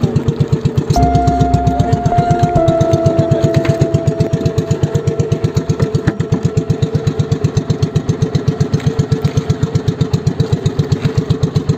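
Small engine of a motorized outrigger boat (bangka) running steadily under way, a rapid, even putter.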